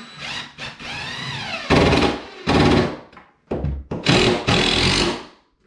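Cordless power driver running screws into wood studs in four or five separate runs; in the first the motor pitch rises and falls.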